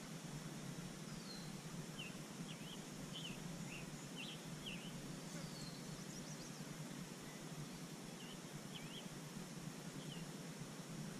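Steady outdoor ambience, a low hum under a hiss, with short high chirps of small wild birds in two clusters, about two to five seconds in and again around eight to ten seconds in, and a few thin falling whistles.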